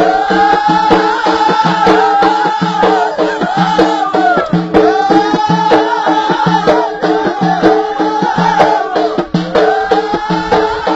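Ahidous music: a Berber chorus singing a short melodic phrase that repeats every couple of seconds over a steady beat of bendir frame drums.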